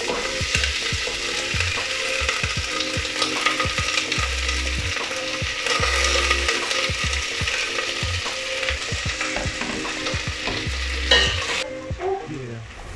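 Chopped onions sizzling in hot coconut oil in a pan as they are stirred, with frequent light clicks and scrapes of the utensil against the pan. The sizzle drops off sharply near the end.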